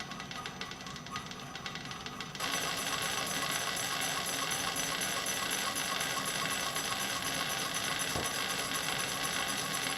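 Bridgeport milling machine spindle turning a boring tool in a steel sleeve, with a fast, even rattle from the cut that gets louder about two and a half seconds in as the tool bites harder; the machinist takes it for the tool hitting a burr.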